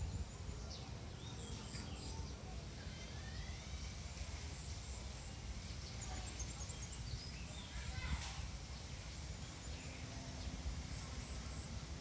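Outdoor ambience: a steady low rumble with faint, scattered high bird chirps and short calls, and one brief sharper sound about eight seconds in.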